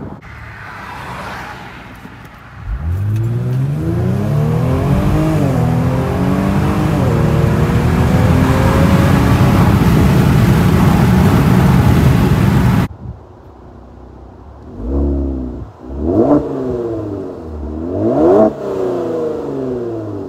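Kia Stinger GT's twin-turbo 3.3-litre V6 through aftermarket downpipes, an MBRP catback and added resonators. It opens with a short car pass, then comes a full-throttle pull heard from inside the cabin, rising in pitch with two upshifts, which cuts off suddenly. The parked car then idles and is revved three times in quick blips.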